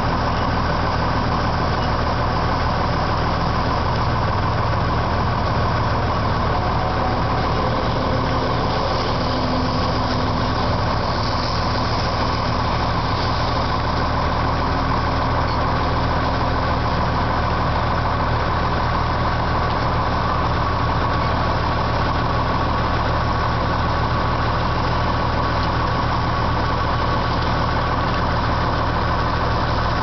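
John Deere 9510 Maximizer combine running steadily while harvesting soybeans: an even diesel engine drone with the machine's working noise.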